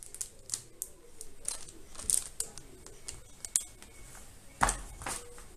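Small plastic zip-lock bags of camera mounts crinkling and clicking as they are handled and set down on a wooden table: a quick, irregular run of crinkles and small knocks, with a louder knock about four and a half seconds in.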